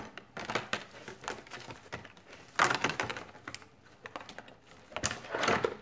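Packaging being handled: irregular clicks and crinkling rustles of plastic wrap and cardboard, loudest about two and a half seconds in and again near the end.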